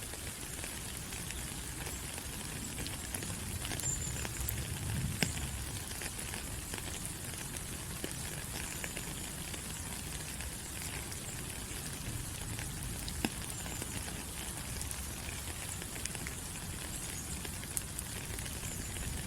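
Steady rain falling on rainforest foliage: an even hiss with scattered drop taps, and a few brief high chirps.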